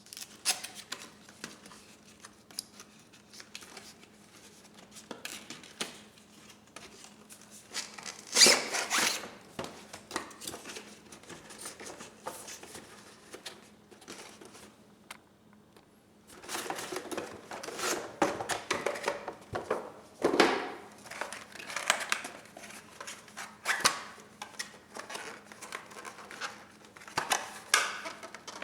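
Hand unpacking of a boxed scan tool: cardboard and plastic packaging rustling, crinkling and tearing, with scattered clicks and knocks as parts are handled. The loudest stretches of rustling come about a third of the way in and again around two-thirds through.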